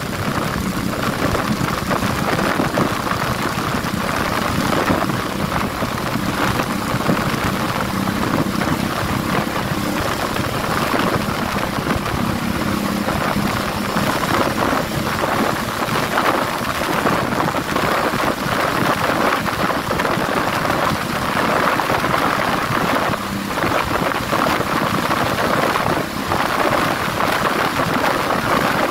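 Motorcycle riding at speed: a steady rush of wind over the microphone, with the engine's hum faintly underneath.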